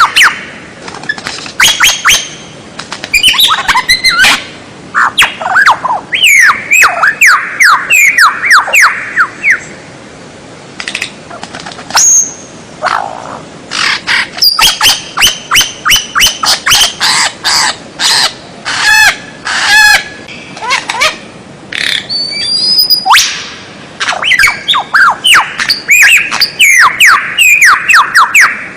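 White-rumped shama (murai batu) singing a loud, varied song of rapid whistled phrases, trills and sharp chips, with short pauses between phrases.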